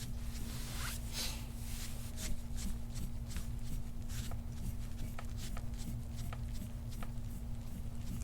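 Soft-tissue work over scar tissue on the back: short rubbing, scraping strokes on skin, about two a second, over a steady low electrical hum.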